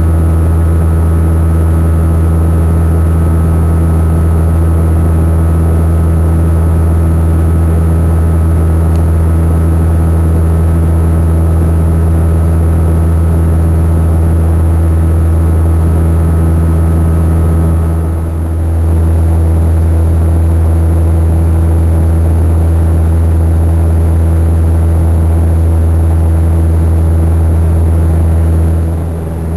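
Cabin noise of a Saab 340 turboprop airliner in flight: a loud, steady engine and propeller drone with a strong low hum. It dips briefly about eighteen seconds in and again near the end.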